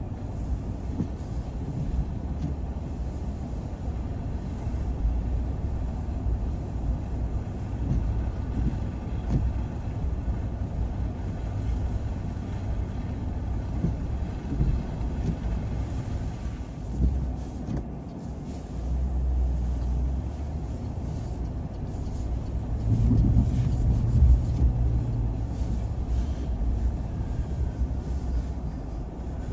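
A car being driven, heard as a steady low rumble of engine and road noise; about 23 seconds in it grows louder for a couple of seconds with a steady low engine hum.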